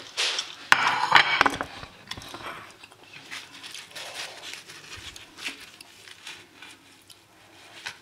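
Handling sounds of a ceramic plate of roti on a stone counter and hands tearing the soft flatbread: a louder burst of rubbing and knocks in the first two seconds, then soft rustles and light clicks.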